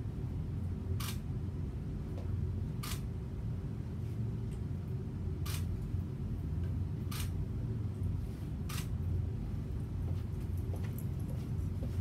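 Single-lens reflex camera shutter firing five times, a second or two apart, over a steady low hum.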